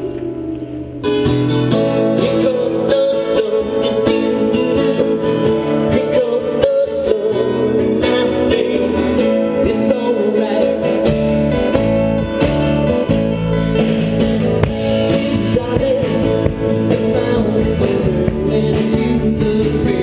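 A band playing live, led by strummed acoustic guitars; the sound fills out about a second in.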